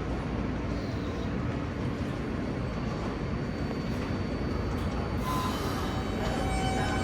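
New York City subway L train running, heard from inside the car: a steady low rumble of wheels on track. About five seconds in, a brief hiss, then several steady whining tones join in.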